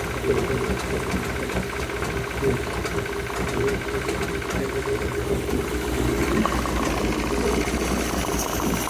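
2000 Yamaha F100 four-stroke outboard running steadily with a fast, even knock. The owner cannot tell whether it is rod knock or just how this engine sounds.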